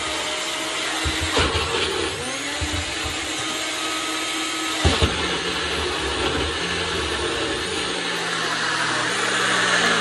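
Blender motor running loud while churning frozen rhubarb into a thick sorbet, its pitch shifting as the stiff mix makes it hang up. Two sharp knocks sound, about one and a half seconds in and again about halfway through.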